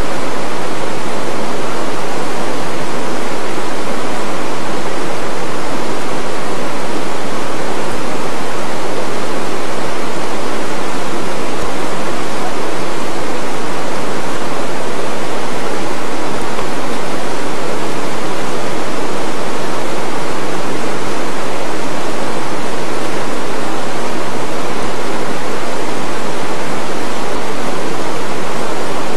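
Rushing river water, loud and steady.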